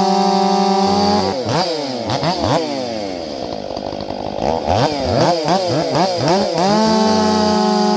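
Ported Stihl MS500i fuel-injected two-stroke chainsaw running at high revs. A little over a second in its pitch falls away and swings rapidly up and down for several seconds, then it winds back up and holds steady at high speed near the end.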